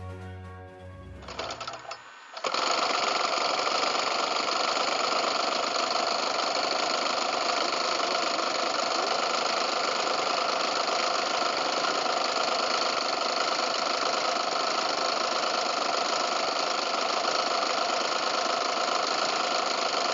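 Two-stroke twin-cylinder DLE 111 boxer petrol engine of a large model airplane, fitted with a Krumscheid exhaust, running steadily on the ground. It comes in suddenly about two seconds in, after a short stretch of music.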